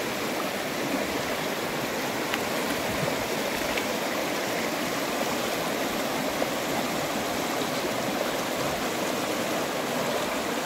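Fast, shallow river rushing over rocks: a steady wash of flowing water.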